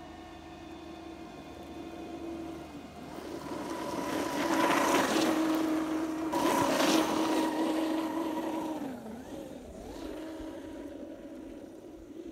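Traxxas UDR RC truck's brushless motor on 6S whining as it drives through snow. It is loudest as it passes close about 4 to 8 seconds in, with a hiss of tyres throwing snow. The whine dips in pitch about 9 seconds in, then picks up again as it moves away.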